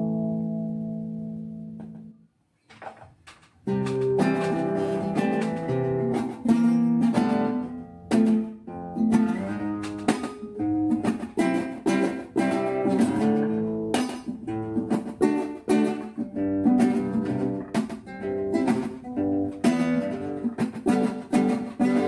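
Acoustic guitar: a final strummed chord rings out and fades away. After a short silence, a lively strummed introduction starts, with regular strokes and bass notes.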